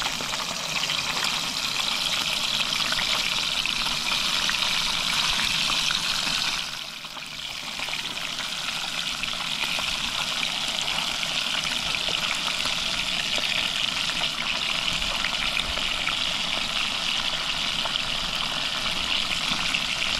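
Pieces of fresh fish sizzling and crackling in hot oil in a frying pan, a steady hiss that briefly fades about seven seconds in.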